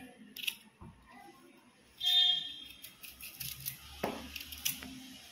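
Kitchen knife paring the skin off a raw elephant foot yam: short scraping strokes of the blade against the firm flesh. The loudest scrape, about two seconds in, has a faint metallic ring.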